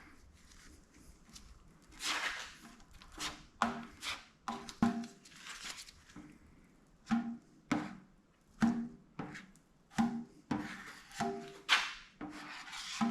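Plastic spreader scraping body filler across the sheet-metal tool box in a run of separate strokes, several with a short squeak as the spreader drags on the metal.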